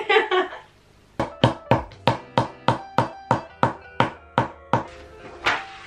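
A brief laugh, then a hammer tapping steadily on a flat-pack furniture panel during assembly: about thirteen sharp strikes at roughly three a second, each with a short ring, then one last strike after a brief pause near the end.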